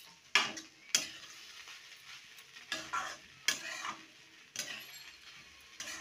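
Spatula stirring and scraping poha (flattened rice) with vegetables around a metal kadai in irregular strokes, with a couple of sharp clinks, over a faint sizzle of frying.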